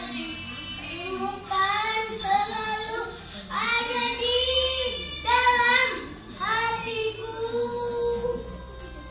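A child singing a slow melody in several phrases, with drawn-out held notes.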